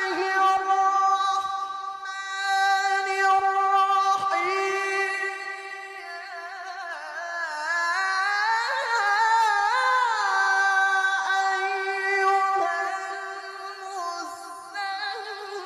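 A single unaccompanied voice chanting Quran recitation in long, high held notes with ornamented, wavering turns.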